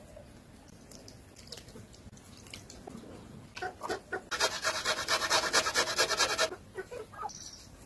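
Metal box grater worked by hand: a quick run of rasping strokes, several a second, for about two seconds just past the middle, after a few light clicks.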